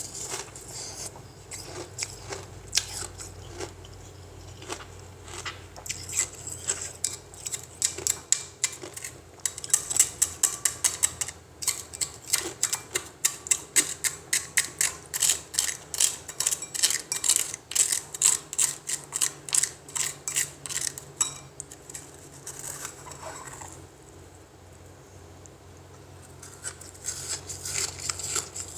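Close-up crunching of freezer ice being chewed, in a fast steady run of about four crunches a second through the middle, easing off near the end before picking up again.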